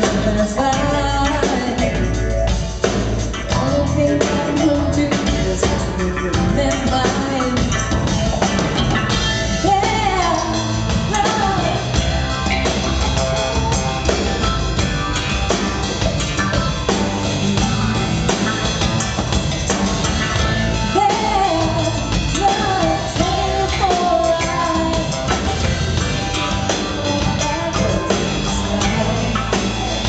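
Live band playing a rock song: drum kit, electric bass and keys, with singing on top, during a sound check.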